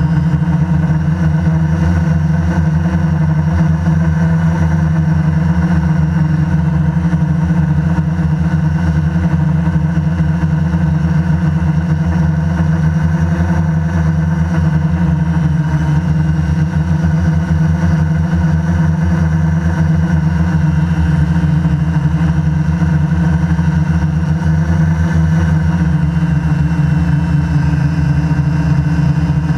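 QAV500 quadcopter's electric motors and propellers running steadily in flight, heard up close from the camera on its frame: a loud hum of several tones whose pitch drifts slightly as the throttle changes.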